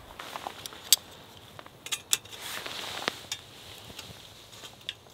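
Light metal clinks and knocks of an aluminium cooking pot being handled on a folding metal windshield stove and lifted off with a pot gripper, with a short scrape just before the middle.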